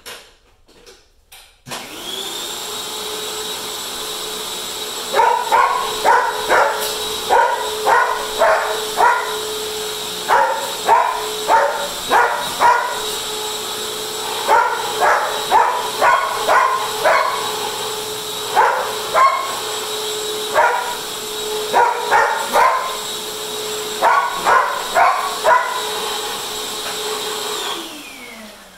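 Upright vacuum cleaner switched on about two seconds in, running with a steady whine, then winding down with a falling pitch near the end as it is switched off. From about five seconds in, a dog barks repeatedly over it in quick runs of sharp barks.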